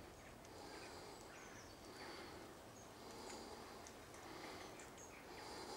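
Faint rural outdoor quiet with scattered short, high bird chirps.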